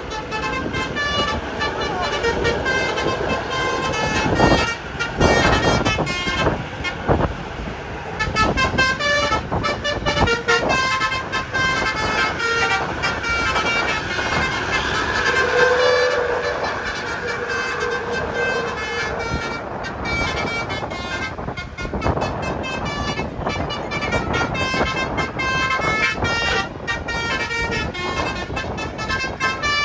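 Many horns tooting in short, overlapping notes over a continuous noisy din.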